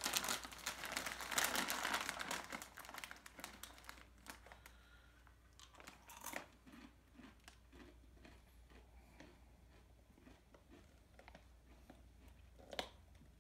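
A plastic snack bag crinkling as it is opened for the first few seconds, then faint scattered crunches from chewing the caramel-coated corn puffs inside.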